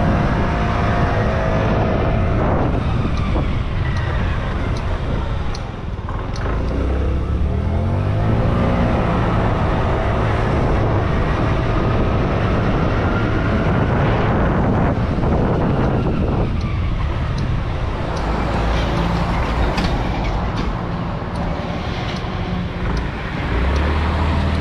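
Motorcycle engine running while riding, with wind rushing over the microphone. The engine note dips, then climbs as the bike pulls away again about six seconds in, and climbs once more near the end.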